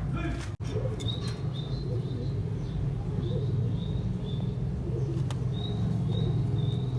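Short, high bird chirps repeating every half second or so, over a steady low hum.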